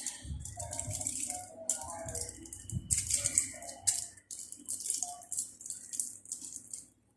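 Chicken lollipops frying in hot oil: an uneven, crackling sizzle that comes in bursts.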